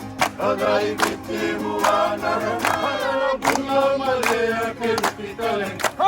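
A group of voices, mostly men, singing together in chorus over a regular beat of claps or strikes: a Fijian welcome song.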